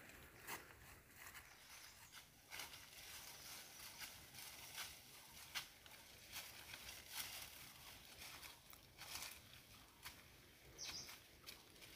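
Faint, irregular crunching and rustling of footsteps through dry fallen leaves, with the rustle of leafy bundles carried on the back.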